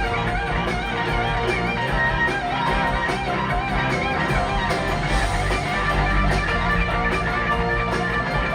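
Rock band playing an electric guitar solo: the lead guitar plays bent, vibrato-laden notes over steady bass and drums.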